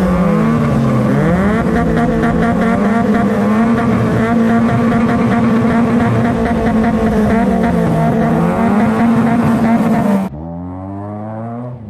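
A modified Honda City and a Mitsubishi Lancer revving through their aftermarket exhausts at the same time, in an exhaust-note contest. The two engine notes rise and fall and overlap. Near the end the sound drops abruptly to a quieter engine revving.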